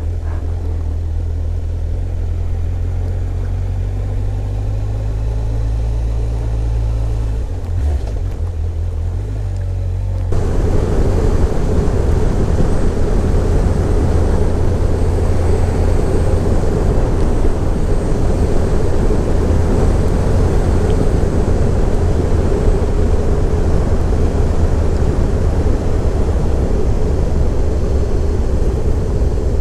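Motorcycle engine running low and steady on the move. About ten seconds in, wind and road noise jump up sharply and stay loud as the bike speeds up on the open road.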